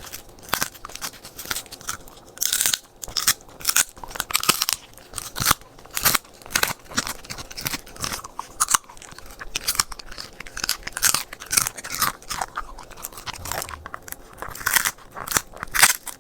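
A corgi chewing and crunching its food, a quick irregular run of crisp crunches and bites.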